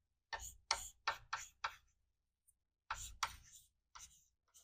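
Faint writing on a board: a run of short ticking strokes, five in quick succession, then a few more about three seconds in.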